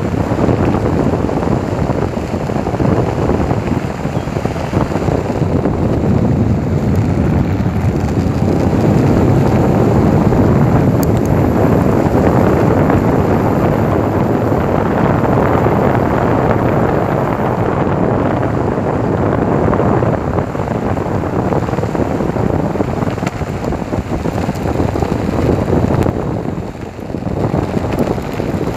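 Electric skateboard riding at speed: steady wind rush on the microphone over the rumble of its wheels rolling on the track, easing briefly near the end.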